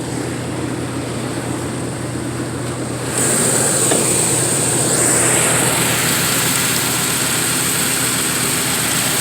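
1988 Chevrolet Caprice engine with aftermarket headers idling steadily; about three seconds in it gets louder and a high hiss joins in.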